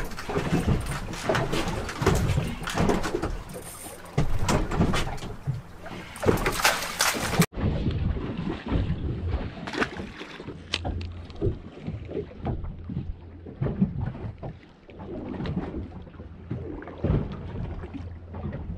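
Water slapping and splashing against the side of a small boat, with wind on the microphone; a hooked fish splashes at the surface beside the hull.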